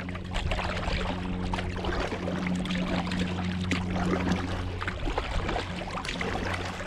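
Water splashing and trickling around a kayak under way on a lake, with irregular small splashes over a steady low hum.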